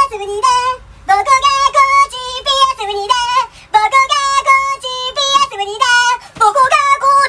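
A high, child-like singing voice on short held notes with a wavering vibrato, in phrases broken by two brief gaps.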